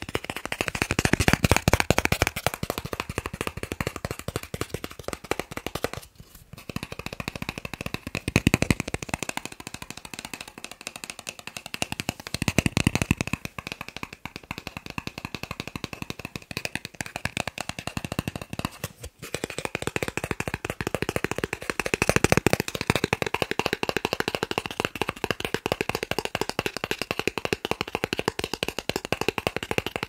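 Fingers tapping very fast on plastic cards held right at the microphone, a dense stream of quick clicks and taps. It breaks off briefly about six seconds in and again about nineteen seconds in.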